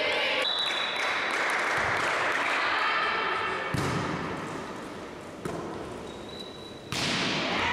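Volleyball rally in an echoing sports hall: three sharp hits of the ball, about a second and a half apart, in the second half.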